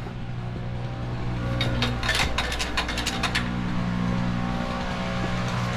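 A small engine running steadily at a low idle, with a quick run of sharp clicks and snaps from about one and a half to three and a half seconds in.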